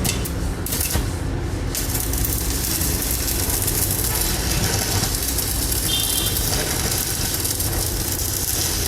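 Arc welding with a stick electrode on an inverter welder: a steady crackling sizzle of the arc that holds at an even level throughout.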